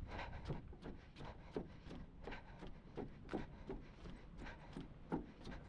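Running shoes striking the planks of a wooden boardwalk in a steady jogging rhythm, close to three footfalls a second.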